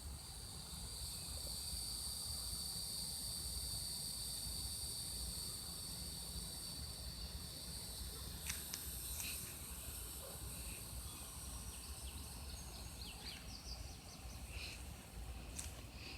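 Steady, high-pitched insect chorus that fades after about twelve seconds, with a few short bird chirps in the second half over a low rumble.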